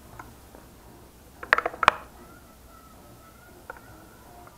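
Sharp metallic clicks about one and a half seconds in as a battery is pressed against two bolt terminals, then a small geared DC motor inside a wooden box runs with a faint, thin whine for about two seconds. A single click follows near the end.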